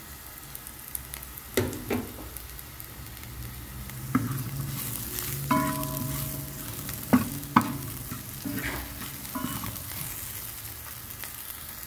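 Minced garlic and chopped onion sizzling in a stainless steel frying pan, stirred with a wooden spatula that scrapes and knocks against the pan, with two sharper knocks a little after seven seconds in.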